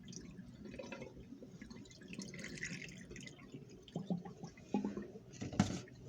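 Water dripping and trickling off a flip phone as it is lifted out of a cup of water, then a few light knocks near the end.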